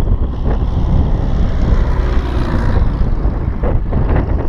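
Wind buffeting the microphone, with a Piper Cub's propeller engine swelling as the plane passes low overhead about two to three seconds in, then fading as it pulls away ahead.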